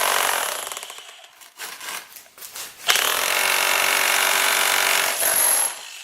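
XtremepowerUS 1000-watt electric demolition hammer hammering a chisel bit into a brick, in two bursts. The first burst dies away about a second in, and the hammer starts again about halfway through and stops just before the end, by which point it has gone through the brick.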